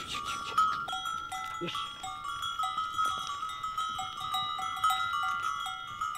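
Bells on walking cattle ringing and clanking unevenly as the herd moves, with a brief low call about a second and a half in.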